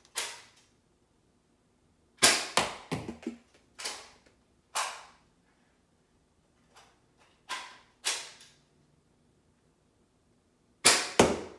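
Nerf Rival Knockout, a spring-powered foam-ball pistol, fired twice: two sharp pops about nine seconds apart, each followed by quick knocks. Single clicks and knocks fall in between.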